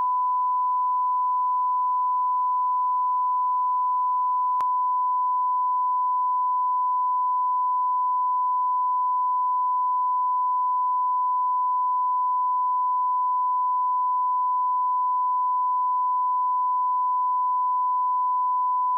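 Steady 1,000 Hz line-up tone, one pure unbroken beep at a constant level: the reference tone laid at the head of a broadcast tape beside its slate, for setting audio levels.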